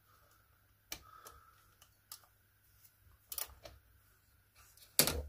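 A few light clicks of small hand tools being handled, a Torx bit and its adapter being fitted, with a louder click near the end.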